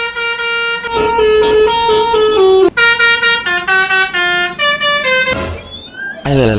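Telolet Basuri multi-tone bus horn playing a tune in stepped, held notes. It stops about five seconds in, and a short rising whistle and a falling swoop follow near the end.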